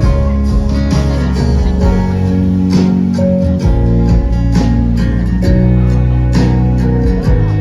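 Live band music led by strummed acoustic guitar over sustained bass notes, with no singing: an instrumental passage of a song.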